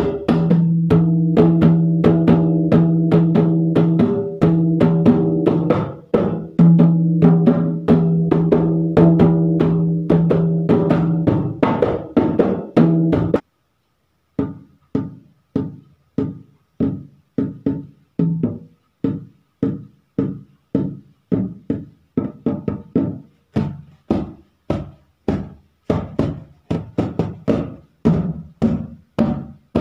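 Dholak, a two-headed barrel hand drum, played with both hands in a fast rhythm, its bass head ringing with a steady low tone under the strokes. About thirteen seconds in, the playing stops for a moment, then resumes with lighter, sharper strokes without the low ringing.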